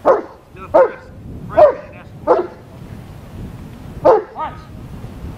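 German shepherd barking: six sharp single barks, each falling in pitch, with a pause of nearly two seconds before the last two.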